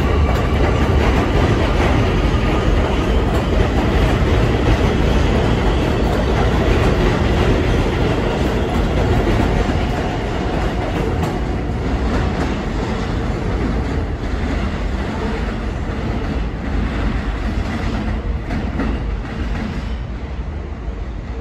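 R160 New York City subway train running past on an elevated track, a steady loud rumble of wheels on rail that slowly fades as the train pulls away into the distance.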